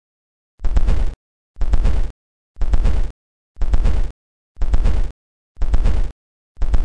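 Computer-simulated exhaust sound of a 120-degree V6 with even firing intervals, from an engine simulator. It comes in short bursts of about half a second, one each second, starting about half a second in, with a strong deep low end.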